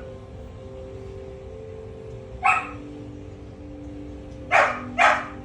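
A dog barking three times in short, sharp barks: one single bark, then two in quick succession near the end, over a steady faint hum.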